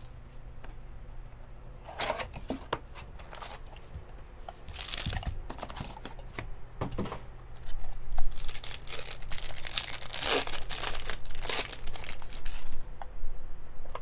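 Trading card pack wrapper being torn open and crinkled by hand, in irregular rustling bursts that get louder and busier in the second half.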